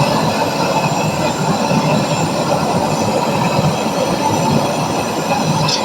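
Steady rumbling noise of a brazing torch flame heating a copper pipe joint on a window AC to loosen it.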